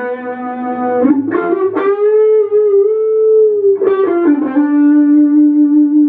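Single-cut electric guitar played through effects pedals: a few picked notes held long and ringing out, one bent slightly up and back down around the middle.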